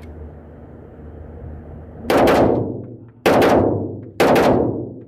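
Semi-automatic pistol fired in quick double taps: three pairs of shots starting about two seconds in, roughly a second apart, each pair two shots in quick succession, with a reverberant tail from the enclosed range booth.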